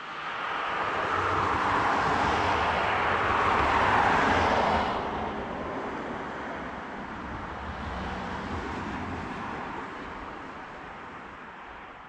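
A vehicle passing on the street: tyre and engine noise swells over the first few seconds, drops off sharply about five seconds in, then fades away slowly.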